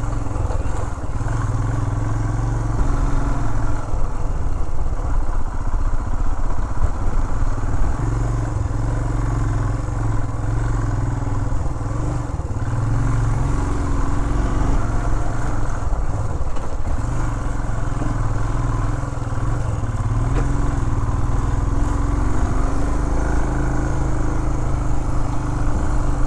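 Single-cylinder engine of a Royal Enfield Himalayan running steadily under way, its pitch rising and falling a little with the throttle.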